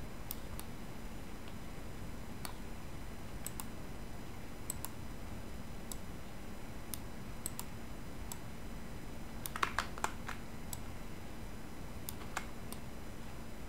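Scattered clicks of a computer mouse and keyboard, irregular and about one or two a second, with a quick run of several clicks a little past the middle, over a faint steady hum.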